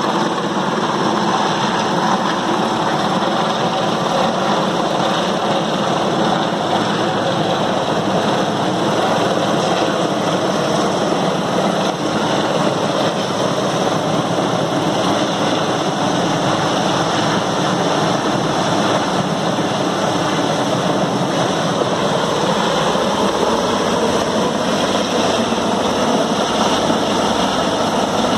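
Large turbine helicopter running steadily overhead while carrying an underslung container, a continuous loud engine-and-rotor noise that holds unchanged.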